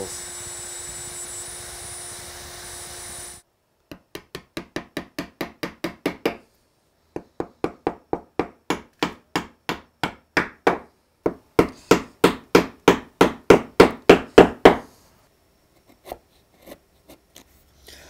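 Triton plunge router running steadily for the first three seconds or so, then stopping. Then a chisel chopping into the wood in quick rows of sharp taps, about three to four a second and growing louder, as the butterfly mortise is cleaned back to its knife lines, with a few scattered taps near the end.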